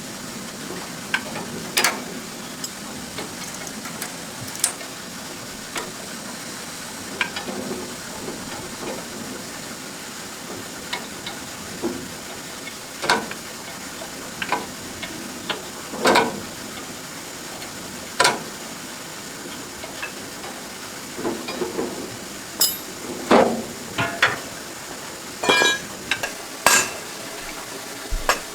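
Scattered metal clicks, knocks and clinks of hand tools working on tractor parts, more frequent near the end, over a steady hiss.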